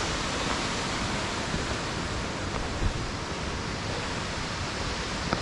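Steady, even rush of fast-flowing mountain water, with one small knock about three seconds in.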